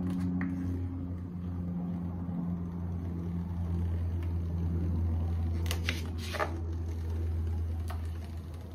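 Vinyl car wrap being peeled by hand off a car door, giving a few short crackles of the film around six seconds in and once near the end, over a steady low hum.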